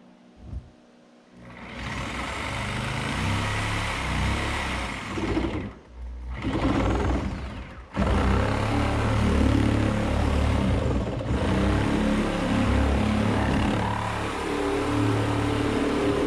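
Reciprocating saw cutting through the plastic of an IBC tote bladder, starting about a second and a half in, stopping briefly twice and starting again.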